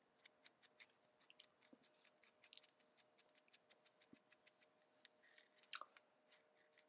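Faint, irregular light metallic clicks as a steel 5C collet is turned by hand onto the threaded end of a draw tube, over a faint steady hum.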